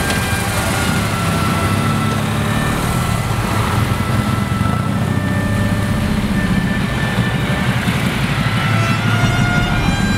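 A group of motorcycles pulling away and riding past at low speed, their engines running together in a dense, steady low sound.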